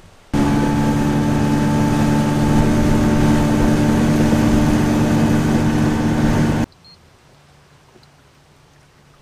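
A small boat's outboard motor running steadily under way, a droning engine note over a rush of wind and water. It starts abruptly just after the beginning and cuts off abruptly about six seconds later.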